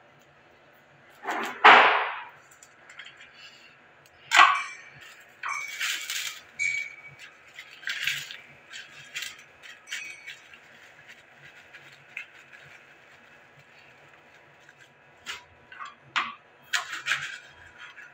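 Kitchen food-prep handling noises: a small knife cutting cauliflower on a plastic chopping board and a plastic bag crinkling, heard as scattered clicks, knocks and rustles. The loudest is one short sound about a second and a half in.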